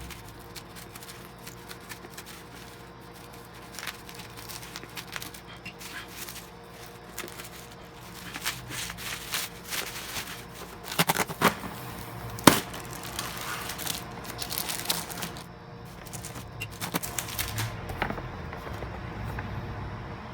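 Packaging being handled: rustling and crinkling with scattered clicks and knocks, busiest in the middle, with a few sharp louder hits about 11 to 12 seconds in.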